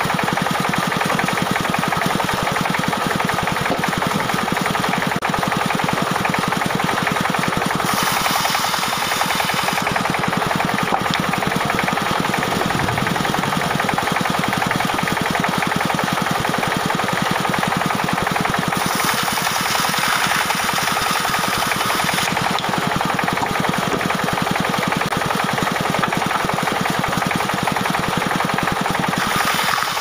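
Engine-driven band sawmill running steadily, its engine giving a fast, even knocking rhythm. A brighter hiss swells a few times as the blade cuts through acacia and teak logs.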